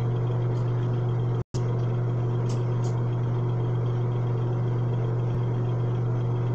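A steady low hum with a hiss over it, which drops out completely for an instant about a second and a half in. There are a couple of faint, soft rustles from a towel being rubbed over a face.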